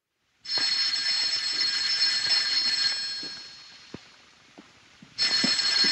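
Black desk telephone's bell ringing: one long ring that fades away, then a second ring starting near the end.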